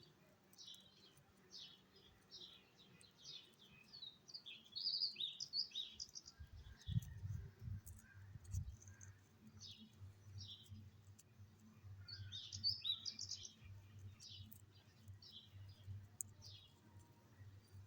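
Small birds chirping faintly, short high chirps repeating throughout with busier clusters around five and thirteen seconds. A low steady hum comes in about six seconds in, with a few low thumps around seven to nine seconds.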